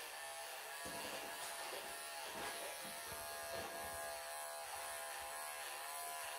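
Wahl professional electric pet clippers running steadily as they clip through a longhaired cat's thick coat.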